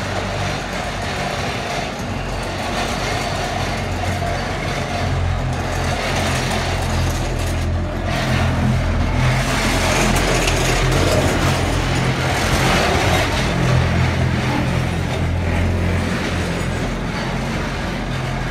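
Ascensor do Lavra funicular car running along its rails: a steady low hum with a noisy clatter over it. It grows louder about halfway through as the car passes close by.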